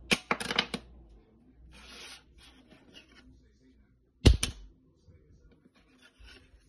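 A metal credit card (American Express Platinum) dropped onto a hard countertop: a quick clatter of several sharp clicks as it lands and bounces, then a second, louder clack with a quick rebound about four seconds in.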